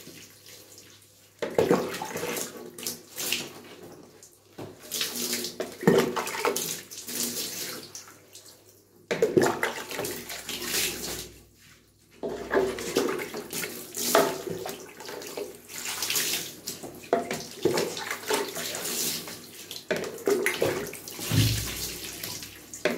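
Water scooped from a bucket with a plastic cup and poured over a wet dog in a bathtub, splashing in irregular bursts with brief lulls.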